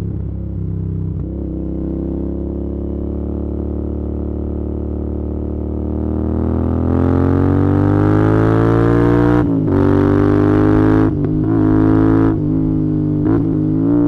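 Royal Enfield Interceptor 650's 648 cc parallel-twin engine heard from the rider's seat, running steadily at low revs, then rising in pitch as the bike accelerates about halfway through. In the second half the note dips briefly three or four times, and wind noise on the microphone grows with the speed.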